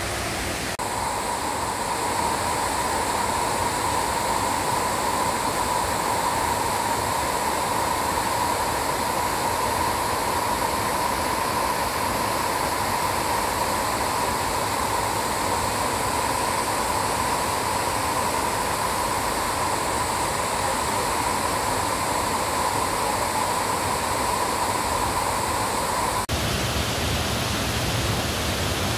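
Waterfall's steady rush of falling water, a continuous even hiss without breaks. About three seconds before the end it cuts abruptly to a different stretch of water noise with more low rumble.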